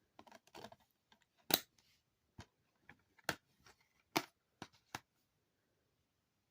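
Plastic DVD cases being handled: sharp clicks and snaps, about half a dozen over a few seconds, with light rustling near the start.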